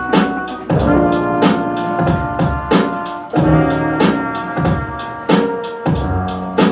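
Music: sustained chords that change every second or so, over a steady percussive beat.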